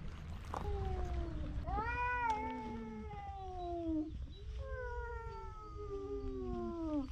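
Stray cats meowing: a run of long, drawn-out meows that slide down in pitch, some of them overlapping.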